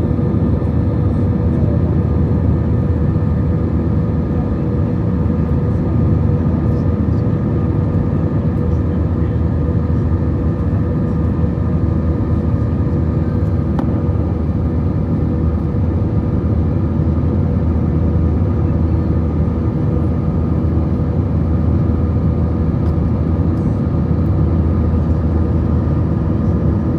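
Airbus A321 jet engines running steadily: a constant low rumble with a steady hum over it, with no change in pitch or level.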